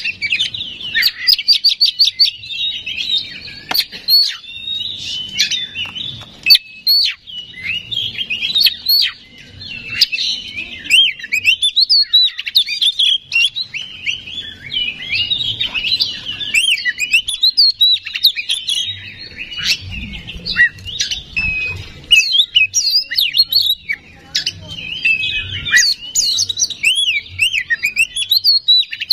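Oriental magpie-robin (kacer) singing a continuous, excited full song of quick sweeping whistled notes and chattering phrases, with a fast trill near the start.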